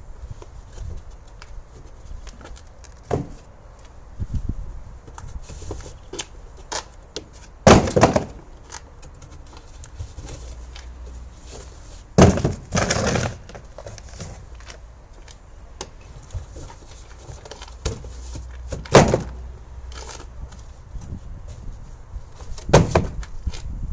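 Empty cardboard boxes being handled and pushed into a car's boot: irregular knocks, thuds and scraping of cardboard. There are louder thumps about eight seconds in, a longer scraping knock around thirteen seconds, and more thumps near nineteen seconds and near the end.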